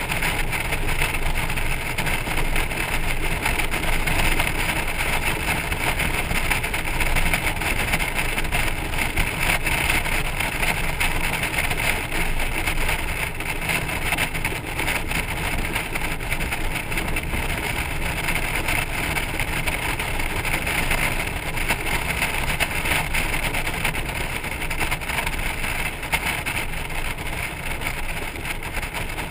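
Steady rush of wind and road noise from a Honda Gold Wing motorcycle towing a trailer at road speed, picked up by a camera mounted on the trailer, with no change in pace or distinct events.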